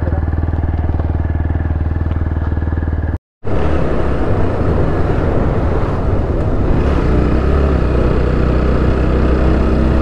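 Motorcycle engine idling steadily. After an abrupt cut, the same motorcycle is heard riding along at about 40 km/h, its engine running under a noisy rush of wind and road noise.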